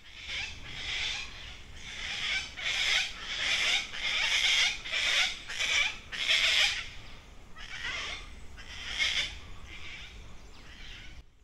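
Gang-gang cockatoos calling: a long run of harsh, scratchy calls, about two a second, loudest in the middle and tailing off near the end.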